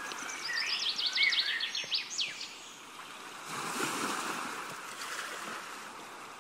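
Seashore ambience: a soft hiss of surf with a quick run of high chirps over the first two seconds or so, then a wave washing in about three and a half seconds in and slowly fading.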